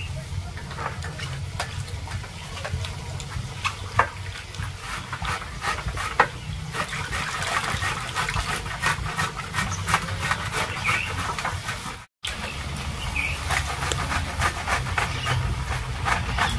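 Vegetables frying in a pan over a wood fire: steady crackling and sizzling with many scattered clicks, over a low rumble.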